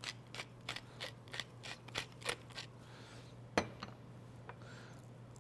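Hand-twisted pepper mill grinding peppercorns: a run of short crunching clicks, about three a second, for the first two and a half seconds. A single sharp knock follows about a second later.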